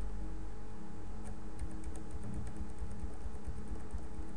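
A few faint computer keyboard key presses over a steady low hum.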